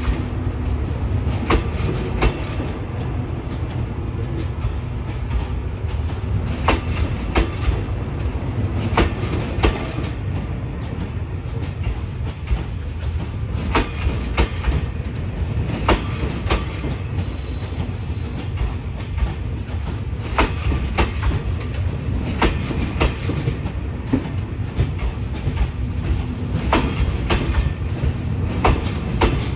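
A train rolling slowly, its wheels knocking over rail joints in close pairs every few seconds above a steady low rumble.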